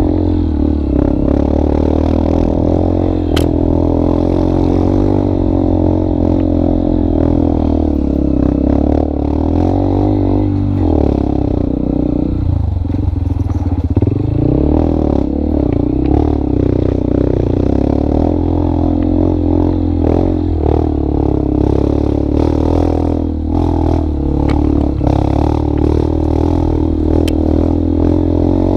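Motorcycle engine running steadily while riding, its pitch dropping and picking up again about halfway through.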